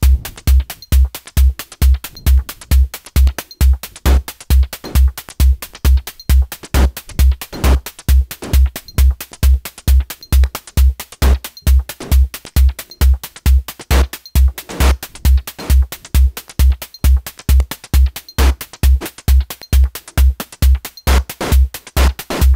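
Looping techno drum-machine pattern from Reaktor Blocks drum modules: a steady four-on-the-floor kick at about 134 BPM, with hi-hat ticks and an FM snare sent through a delay, its decay opened and closed by automation.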